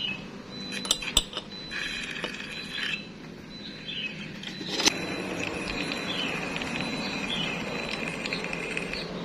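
Light metallic clinks and taps as steel pieces (a hinge barrel, a thin steel rod and a welding electrode) are handled and set against round steel pipes, with a couple of sharp clinks about a second in and another near five seconds. A faint steady high tone runs in the background.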